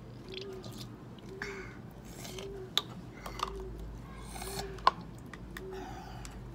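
A plastic syringe being handled and refilled from a plastic cup for nasal irrigation: small clicks and rustles, with two sharp clicks near the middle. A faint low tone repeats about once a second underneath.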